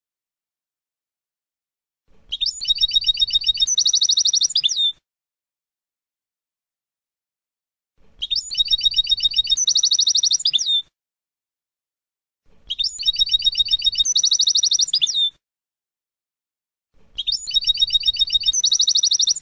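European goldfinch song of the 'Abu Khalil' style: the same phrase of rapid, trilled high notes ending in a downslurred note, played four times. Each phrase lasts about three seconds, with pauses of a few seconds between.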